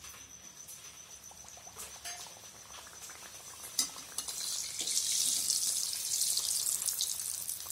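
Khandvi, a stuffed besan pastry, deep-frying in hot oil: a quiet crackle at first, then a sharp click about four seconds in and a loud hissing sizzle as the oil bubbles hard around it.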